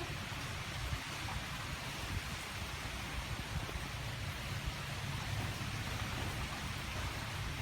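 Steady rain falling in typhoon weather, an unbroken hiss with a low, gusty rumble underneath.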